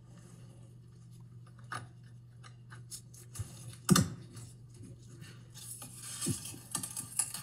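Small plastic clicks and handling noises as a green wire-harness connector is worked onto the orange connector of a dishwasher detergent dispenser, with the loudest click about four seconds in as it seats. Near the end come rustling and scraping as the foam insulation is handled.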